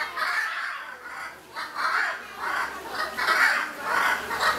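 Hyacinth macaws squawking: a run of harsh, raspy calls, about two a second.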